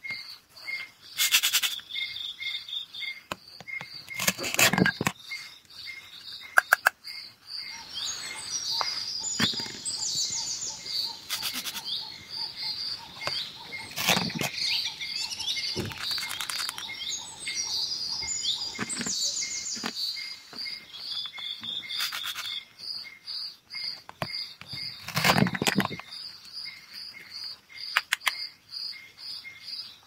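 Plastic toy fruit and vegetable pieces knocked and clattered about, with a few short loud rips as their Velcro-joined halves are pulled apart. Crickets chirp steadily in the background, and birds chirp now and then.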